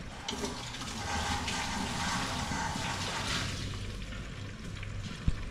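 Food sizzling in a covered frying pan of onions and tomatoes in oil: a hissing rush that swells about a second in and eases off after about three seconds, with a single knock near the end.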